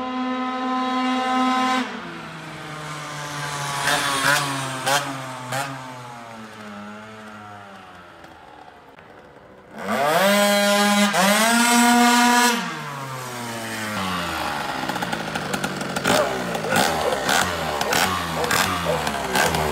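Beta Ark scooter's Minarelli two-stroke, tuned with a 70cc Testarossa cylinder and Malossi exhaust, screaming at high revs, its pitch dropping as it passes and fades down the road. About ten seconds in it goes past again flat out, the revs rising and holding high, then falls to a low, uneven idle with scattered clicks near the end.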